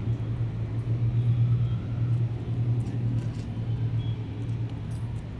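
Low, steady drone of aircraft engines passing overhead, easing slightly near the end.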